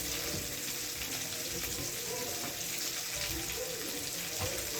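Water running steadily from a kitchen tap into a sink, with a few faint clinks.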